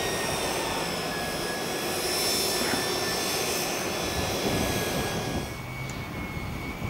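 Front-mounted winch on a Jeep Grand Cherokee running under load with a steady whine, reeling in its cable to pull the stuck vehicle out of the mud. It gets somewhat quieter near the end.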